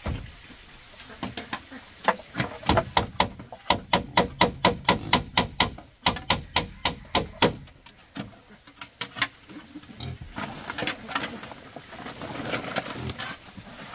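A rapid run of sharp knocks on the bamboo pen, about four a second, starting about two seconds in with a brief break near the middle and stopping a little past halfway, followed by softer rustling and shuffling.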